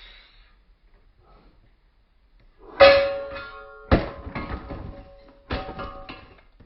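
Three sharp knocks about a second and then a second and a half apart, each followed by a clear ringing tone that fades; the first is the loudest. Hard objects falling and clattering.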